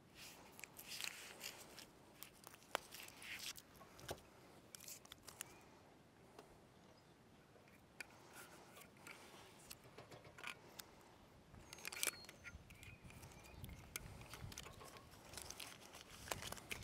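Butyl tape being peeled and pressed onto short pieces of metal Z-bar by hand: faint, scattered scratchy rustles and tearing, with a few sharp clicks, the loudest about twelve seconds in.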